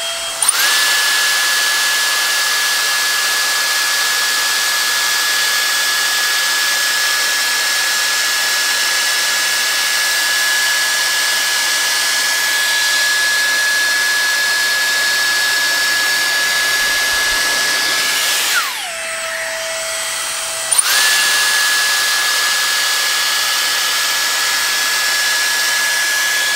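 Dyson Airstrait blowing hot air in wet mode: a steady rush of air with a high motor whine. About two-thirds of the way through, the whine drops to a lower pitch and the airflow eases for about two seconds, then it spins back up to full.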